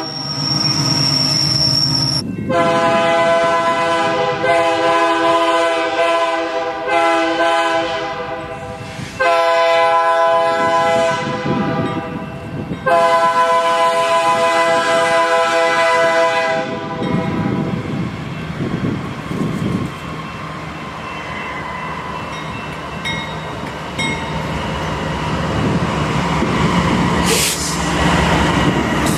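Nathan K3-series five-chime locomotive air horn sounding a chord in four long blasts, back to back with barely a break, after the tail of another horn blast that cuts off about two seconds in. The horn then stops and the train passes with a steady rumble and clatter of wheels on the rails.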